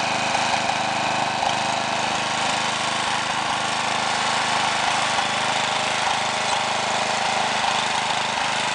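Ride-on tractor lawn mower's engine running steadily as the mower drives across rough grass.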